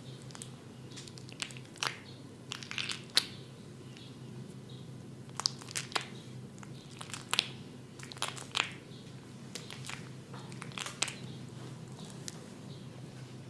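Irregular crisp crackles and rustling clicks in small clusters, typical of hands rubbing hair and scalp close to the microphone during a head massage, over a steady low hum.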